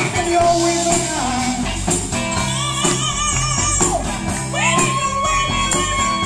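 Live rock band playing: electric guitar and drum kit with a steady beat under several singers, with a long held sung note from about halfway through.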